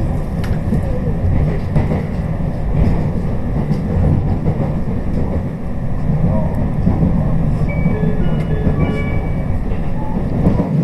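Running noise of a JR West Special Rapid Service train heard from inside the car: a steady low rumble of wheels on rail. About eight seconds in comes a short run of brief electronic tones at several pitches.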